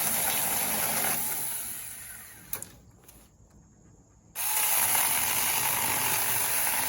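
Saker 6-inch 20 V battery mini chainsaw running in two bursts of a few seconds each, with a high whine, winding down after the first burst; a small click in the pause between them.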